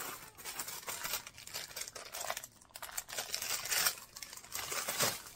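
Plastic packaging crinkling and rustling in irregular bursts as a silicone mold is handled and pulled out of a cardboard box, loudest about four and five seconds in.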